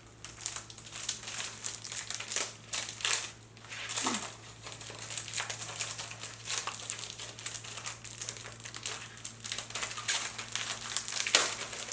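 Crinkling and rustling of packaging being handled and unwrapped by hand: an irregular run of crackles with no steady rhythm.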